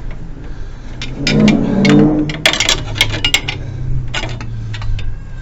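Steel spanner clinking and scraping against metal in a string of sharp clinks, with the densest run between about one and three and a half seconds in, over a low steady hum.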